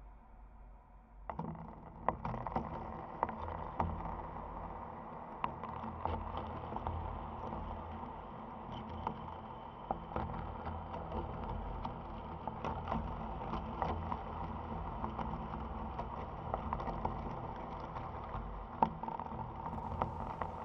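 Low, steady background noise with scattered light clicks and taps, starting a little over a second in.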